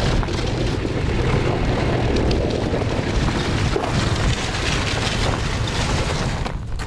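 Snowmobile on the move, a steady engine rumble mixed with wind buffeting the microphone, that falls away sharply near the end.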